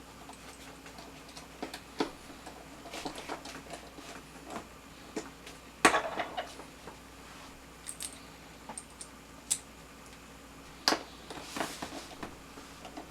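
Scattered light clicks and taps of small plastic parts, screws and a screwdriver being handled during assembly, with a sharper knock about six seconds in and another near eleven seconds, followed by a brief hiss.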